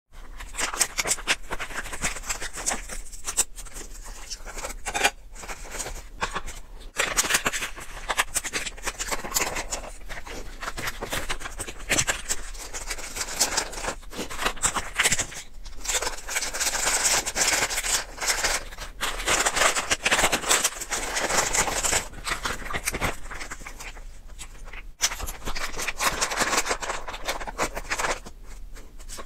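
Plastic packets of instant luosifen toppings crinkling and rustling as they are torn open and emptied into a paper noodle bowl, with chopsticks scraping and stirring the noodles. Dense crackling with many sharp clicks, going on and off.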